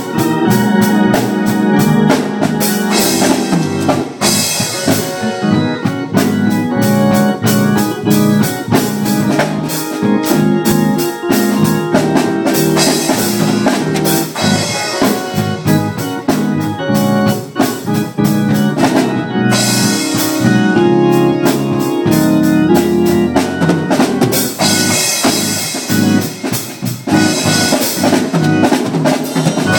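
A Pearl drum kit played in a steady groove, with cymbal crashes every few seconds. Held organ chords play along with it.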